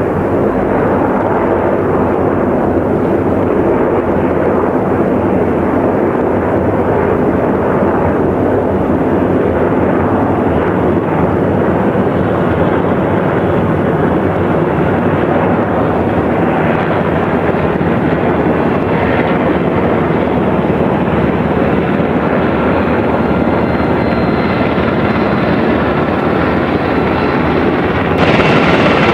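Several military helicopters flying in formation: a steady, loud rotor and turbine drone that steps up a little near the end.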